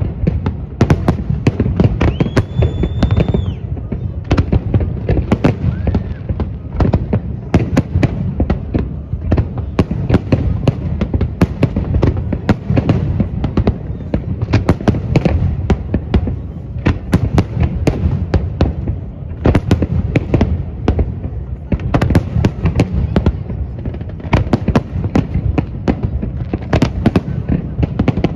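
Large aerial fireworks display: shells bursting and crackling in a rapid, continuous barrage of bangs. A brief high whistle sounds about two seconds in.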